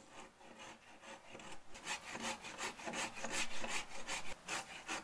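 Hand saw cutting into a dead, barkless log with quick back-and-forth strokes. The strokes start light and grow louder and firmer about two seconds in.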